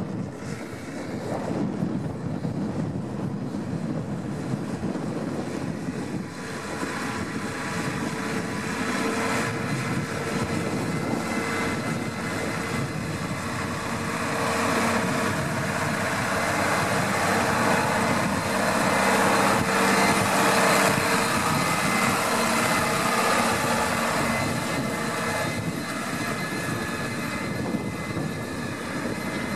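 New Holland TS115 tractor's diesel engine running steadily under load while pulling a reversible plough through the soil, getting louder as the tractor comes close past about halfway through and easing off near the end.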